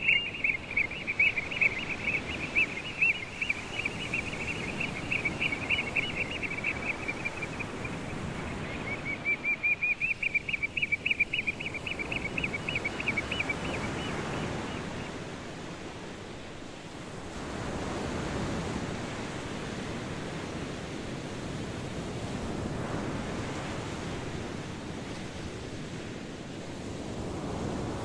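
Surf washing on a sandy shore with some wind, the noise swelling and easing in slow waves. Through the first half a rapid, high-pitched trill repeats in two long runs with a short break between, then stops.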